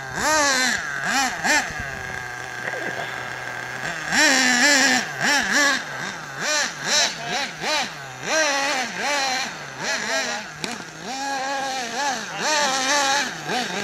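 Nitro RC buggy's small two-stroke glow engine revving up and down as it is driven, its pitch rising and falling every half second or so, steadier for a couple of seconds near the start.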